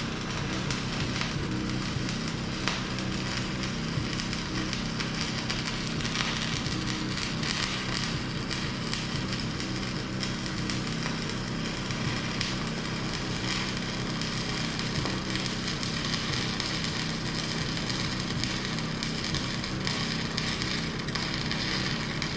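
Stick welding arc crackling and sizzling steadily as a bead is run, welding a steel bucket tooth to its worn shank.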